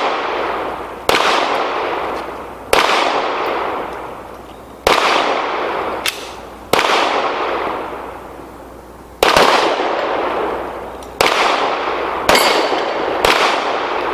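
Handgun shots fired at steel targets: about nine sharp reports at uneven spacing, one every one to two seconds, each trailing off in a long fading echo.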